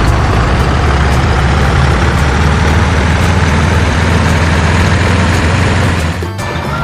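Steady heavy truck engine idling sound, a low hum under an even hiss, which breaks off abruptly about six seconds in.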